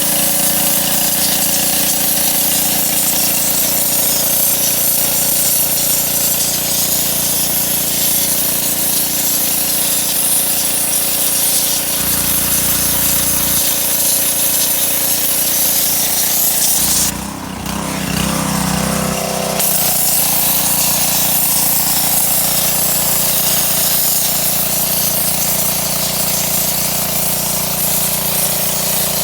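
Pressure washer running: a steady motor hum under the hiss of the water jet. A little past halfway the spray hiss cuts out for about two seconds while the motor's pitch wavers, then the spray comes back.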